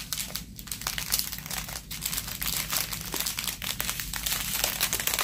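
Small clear plastic packets of diamond-painting drills crinkling as they are handled. The crinkling is a dense run of quick crackles that stops right at the end.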